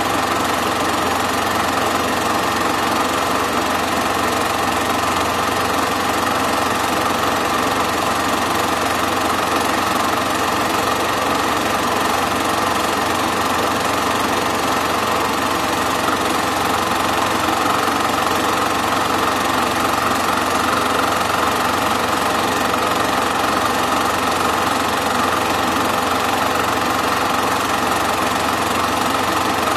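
Super 8 film projector running: a steady mechanical whirr and clatter from the film transport, unchanging throughout.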